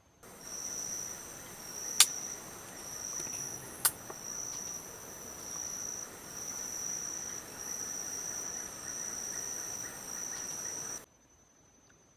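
Forest insects chirping in a steady high-pitched trill that pulses about once a second, with two sharp clicks about 2 and 4 seconds in. It cuts off suddenly near the end.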